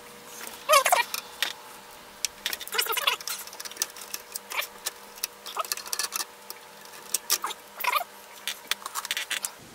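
Screwdriver turning a screw out of the metal side rail of an instrument chassis: a run of small irregular clicks and ticks, with a few short squeaks.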